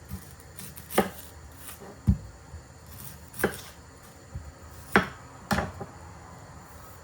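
Knife chopping on a cutting board in a handful of separate strokes, roughly one every second or so, with one duller, deeper knock about two seconds in.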